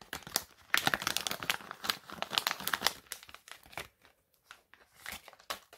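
Foil blind-bag booster packet being crinkled and torn open by hand: about three seconds of dense crackling, then a few scattered crinkles near the end.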